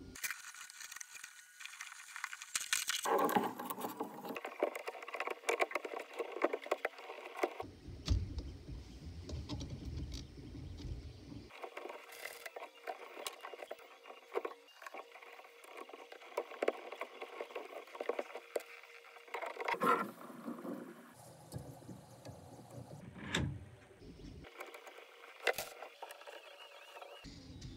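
Handling noises from a 3D-printed generator assembly: plastic parts and steel rods clicking, knocking and scraping irregularly as they are slid together and adjusted by hand.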